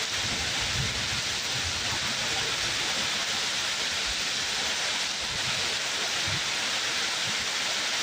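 Steady, heavy rain falling, an even hiss with faint low thuds of drops here and there.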